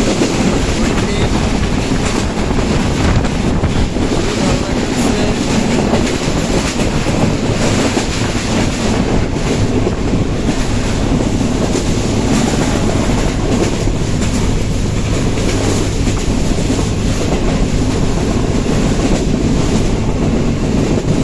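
Dhaka–Benapole Express passenger train running steadily, a continuous loud noise of the carriages and wheels on the rails.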